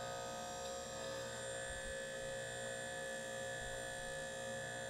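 Vevor 7000 lb portable car lift's electric hydraulic power unit running with a steady hum, its pump pushing fluid through the hoses. The lift has not yet started to rise, which is taken as the pump still having to fill the lines.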